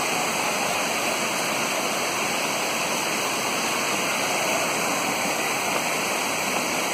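Small waterfall pouring over a rocky cascade: a steady, even rush of falling water.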